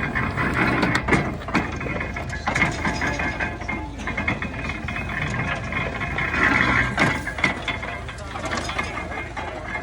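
1923 International Harvester stationary baler working, its mechanism clattering with irregular knocks over a steadily running engine.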